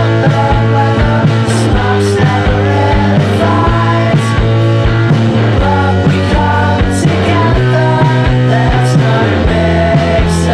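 Lo-fi pop band music: drums keeping a steady beat over sustained low bass notes, which step to new notes late on.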